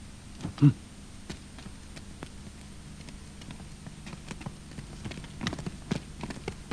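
One dull thump about half a second in, then footsteps on a hard floor: a few scattered steps that become a quicker, louder run of taps in the last couple of seconds, as if someone is hurrying closer.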